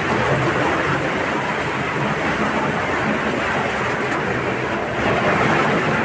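Steady rush of an underground stream flowing over rocks in a cave passage.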